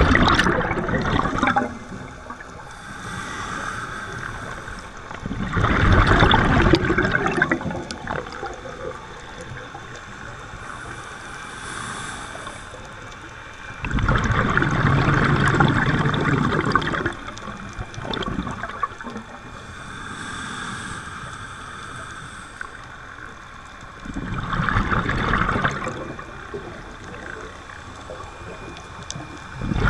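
Scuba diver breathing through a regulator underwater: slow breaths, each a hiss of inhaling followed by a rush of exhaled bubbles, about eight to ten seconds apart.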